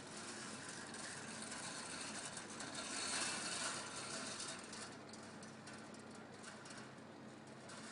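Coffee beans rattling with many small clicks as they tumble in the rotating stainless steel cage of a countertop convection roaster oven, over a steady hiss, a little louder about three seconds in.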